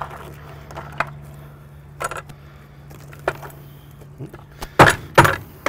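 Hard baked salt crust being cracked and pulled off a roasted chicken by hand, with scattered crunching clicks, then two sharp loud knocks near the end.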